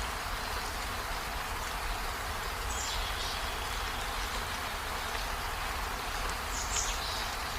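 Steady rain falling on leaves and a window, an even hiss with a low rumble beneath it. Two brief high chirps stand out, about three seconds in and near the end.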